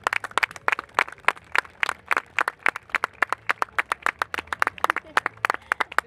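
A small group of people clapping, the separate hand claps quick and uneven, several a second, keeping on steadily throughout.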